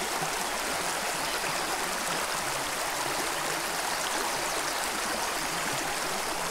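A small trout creek running steadily, an even rushing of water over the stream bed.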